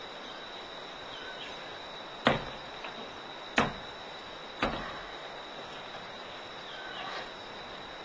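Three sharp thuds of a martial artist's feet stamping on a wooden floor during fast Taijiquan movements, a little over a second apart, each with a short ring.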